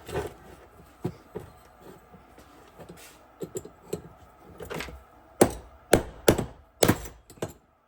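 Hammer blows knocking a worn-out bearing from a wagon wheel's hub. A few lighter, irregular strikes come first, then a quicker run of about five louder blows in the second half, as the bearing works loose.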